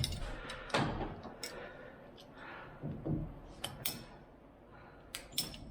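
Scattered sharp clicks and knocks of PEX tubing, fittings and hand tools being handled during plumbing work.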